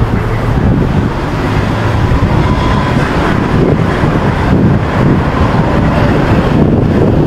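Steady city street traffic noise, with wind rumbling on the microphone.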